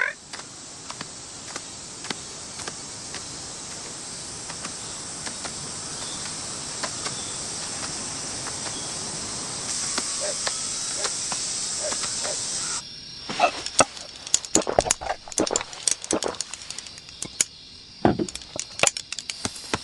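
A steady, high insect drone, which cuts off abruptly about two-thirds of the way in. It gives way to irregular sharp clicks and clatters of tableware, dishes and chopsticks knocking.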